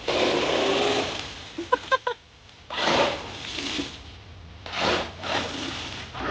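Remote-control monster truck driving through water: three bursts of splashing and churning tyres, each lasting about a second.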